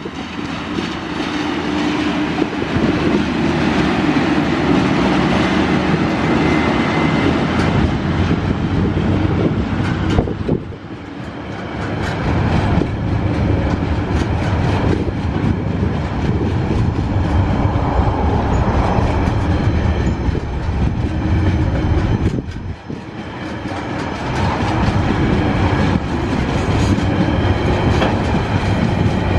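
Tasrail TR-class diesel-electric locomotives passing, their engines running loud with a steady low hum for about the first ten seconds. After that a long train of loaded container wagons rolls by, wheels clattering over the rail joints, with two brief dips in loudness.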